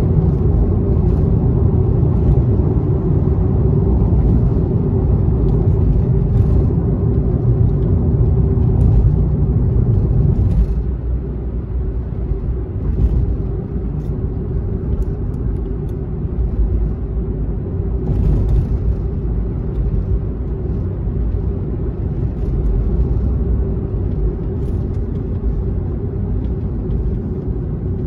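Road noise inside a moving car's cabin at highway speed: a steady low rumble of tyres and engine with a constant hum. It becomes quieter about ten seconds in and stays lower.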